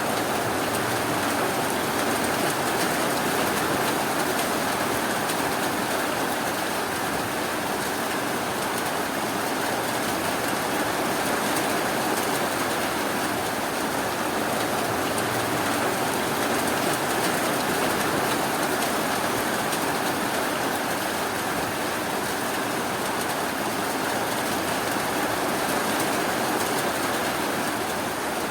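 Steady rainfall, an even hiss that holds at one level throughout.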